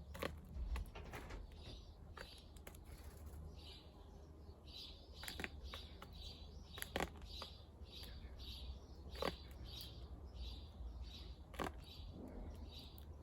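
A small garden bird chirping over and over, about one and a half high chirps a second, growing steady from about four seconds in. A few sharp clicks fall among the chirps, and a low background rumble runs underneath.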